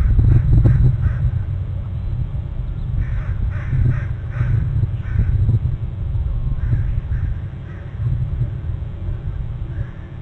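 Crow cawing, a run of about five calls a few seconds in, then a few fainter caws, over a steady low rumble.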